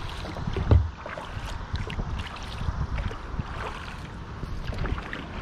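Water lapping and trickling against the hull of a Wilderness Systems Tsunami 120 touring kayak as it is paddled, with scattered drips and small splashes over a low rumble. There is a single dull thump about three quarters of a second in.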